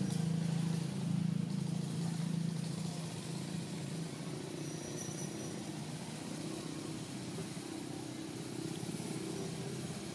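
Motor vehicle engine running, a steady low drone that shifts higher about four seconds in.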